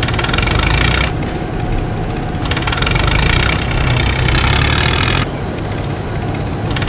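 An engine running at idle, a steady low rumble, with louder noisy stretches coming and going over it.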